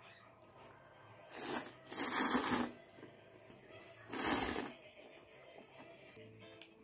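Three short bursts of crisp, rustling crunch from a bowl of lettuce and spaghetti salad pasta. The middle burst is the longest.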